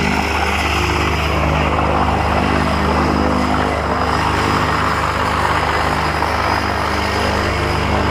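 A small propeller plane's engine running steadily on the ground close by: a constant drone with a rushing noise over it.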